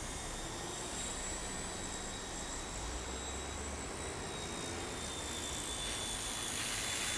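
Small electric motors and rotor blades of a WLtoys V911S toy RC helicopter in flight, a steady high-pitched whine over an even whirr, growing a little louder near the end.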